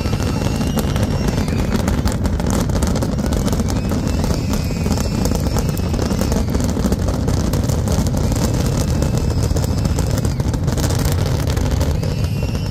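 Fireworks barrage: many shells bursting in close succession, running together into a continuous loud rumble with crackling.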